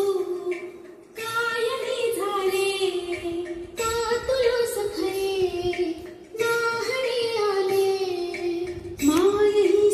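A woman's high voice singing a slow melody with little or no accompaniment, in phrases about two and a half seconds long with short breaths between them.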